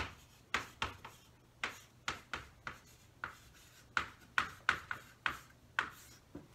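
Chalk tapping and scratching on a chalkboard as symbols are written: about fifteen short, sharp strokes at uneven intervals.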